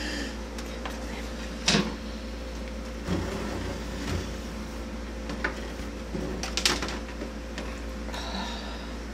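A steady low hum with a few sharp clicks and knocks scattered over it, the loudest about two seconds in and again near seven seconds.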